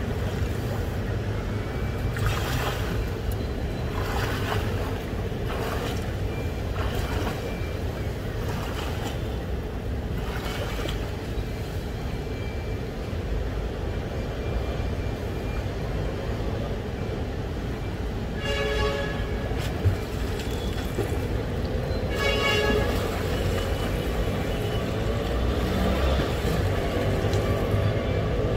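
Wind rumbling on a phone microphone held at a pool's edge, with water lapping and splashing against it. About two-thirds of the way in come two short pitched tones a few seconds apart, and a single sharp knock between them.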